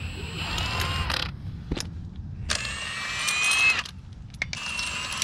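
Cordless impact wrench loosening a car's wheel lug nuts, hammering in three bursts with a whining motor that rises in pitch during the second burst. A sharp click comes between the first two bursts.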